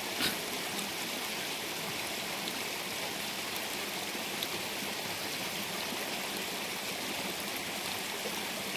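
Steady, even rush of stream water running over rock slabs. A brief knock sounds just after the start.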